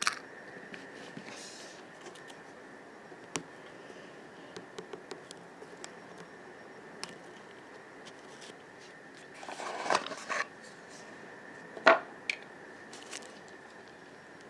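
Handling noise of a small plastic toy figure and its accessories being moved by hand: scattered light clicks and taps, with short bursts of rustling and clattering about ten seconds in and again about twelve seconds in, over a faint steady hiss.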